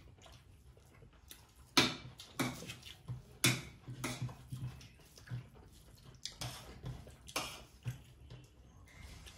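Spoon clinking and scraping against a metal dinner plate during a meal, with several sharp clinks spread unevenly over the seconds.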